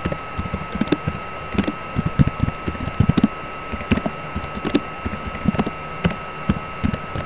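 Typing on a computer keyboard: quick, irregular key clicks, a few a second, as a line of text is typed. A thin, steady high tone runs behind the clicks.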